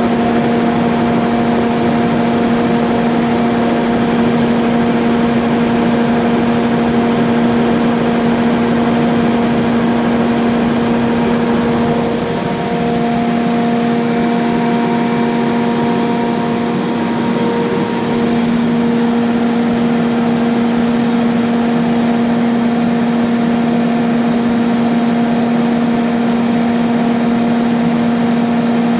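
Cummins KTA50-G8 V16 diesel generator set running steadily, a loud even engine drone with a strong hum.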